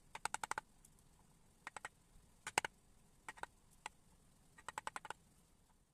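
A half-inch carving gouge pushed by hand through wood, snipping off chips with short crisp clicks that come singly and in quick little runs; the loudest is about two and a half seconds in.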